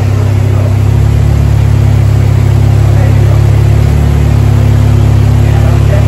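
Honda K20 four-cylinder engine, swapped into an EG Civic, running steadily with a loud, low, even drone.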